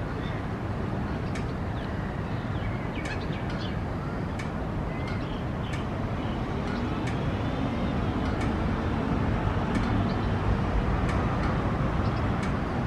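Steady low rumble of city traffic, swelling a little past the middle, with scattered short bird chirps and clicks over it.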